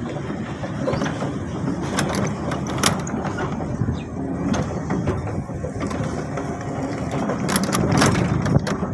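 Bicycle rattling and clicking as it rolls over a rough, rutted dirt road, over a steady low rumble from the tyres on the loose surface.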